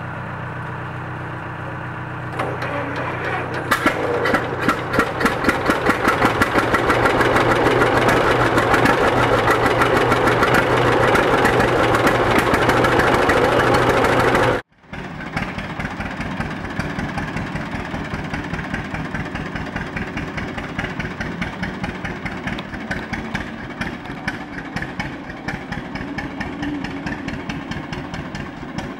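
John Deere Model D's two-cylinder engine running. It starts as a steady low hum, then from about three or four seconds in a loud, rapid, even train of exhaust pops comes in. After a sudden break about halfway, it runs on at a quieter, steady putt.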